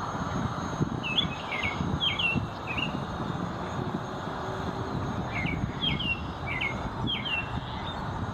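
A small songbird calling in two bouts of short, sharp chirps, one about a second in and another after about five seconds, over a steady low background rumble.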